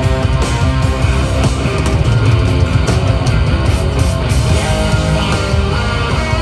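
A live rock band playing loudly through an arena PA: electric guitars over drums and bass, with no singing.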